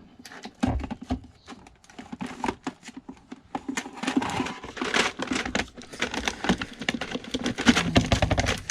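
Hand tools being handled and worked while being oiled: irregular small clicks and clinks of metal with rag rustling, busier from about halfway through.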